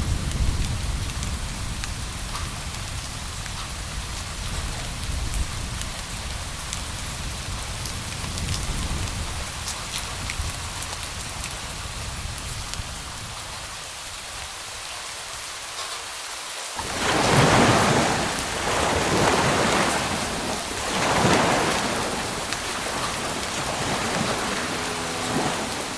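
Thunderstorm sound: steady rain, with a low rumble of thunder at the start and three loud swelling claps of thunder about two-thirds of the way through. Faint steady tones come in near the end.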